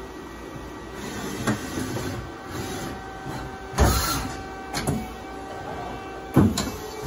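Hyundai Kia SKT210SY CNC lathe running its cycle: a steady machine hum, broken by short servo whirs that sweep up and down in pitch as the turret and sub spindle move rapidly between positions. The loudest moves come about four seconds in and again near the end.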